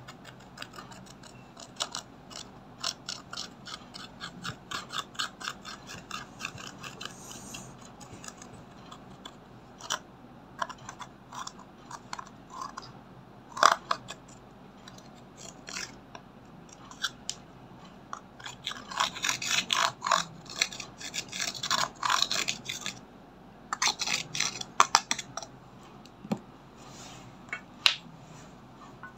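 Metal-tipped tool scraping and digging into a pan of pressed highlighter powder, crumbling it: runs of quick, dry scratching strokes with an occasional sharper click.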